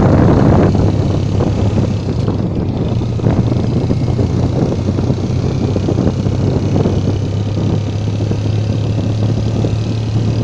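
Moving road vehicle running steadily: a low engine drone with tyre and wind noise. A louder rush of wind fades out in the first second.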